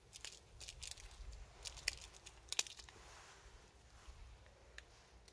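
Faint crackles and clicks of a cat biting and mouthing a feather teaser toy, several in quick succession over the first three seconds, then only a few.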